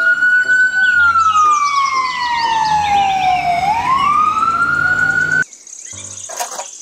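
Ambulance siren sounding a slow wail: the pitch rises, falls slowly for about three seconds, then climbs again. It cuts off suddenly about five seconds in.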